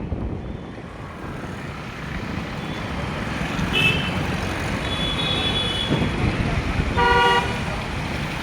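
Road traffic with vehicle horns honking over steady engine and road noise. There is a short high beep about four seconds in, another around five seconds in, and a louder, lower horn blast about seven seconds in.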